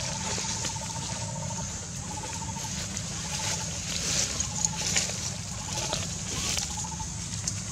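Outdoor ambience: a steady low rumble, a high insect-like hiss, and a pulsing trill repeated in short runs of about a second. A few light rustles or clicks come near the middle.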